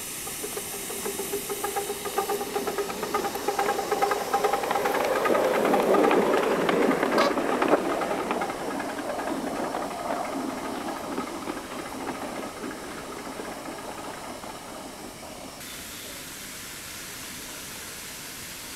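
7¼-inch gauge miniature steam locomotive hissing steam, then chuffing as it pulls away, its exhaust beats loudest about six to eight seconds in with one sharp click, then fading as it runs off.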